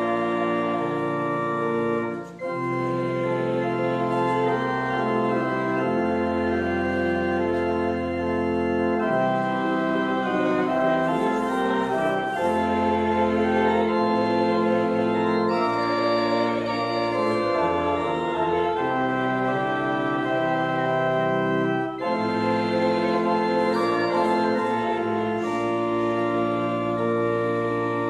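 Organ playing slow, sustained chords that change every few seconds, with two brief breaks between phrases.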